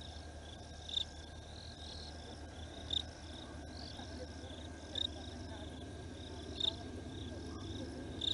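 Night insect chorus, likely crickets, with a loud short chirp repeating about every one to two seconds over a low steady hum.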